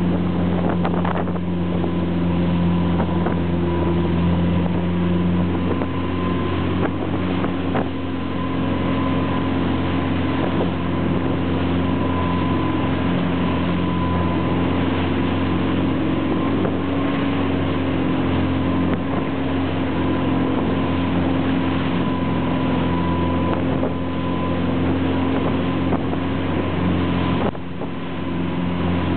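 Fishing boat's engine droning steadily while under way, over the rush of the churning wake and wind buffeting the microphone. The level dips briefly near the end.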